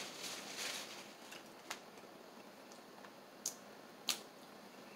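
Paper towel rustling as hands are wiped, then three short sharp clicks of snow crab shell being picked apart for its meat.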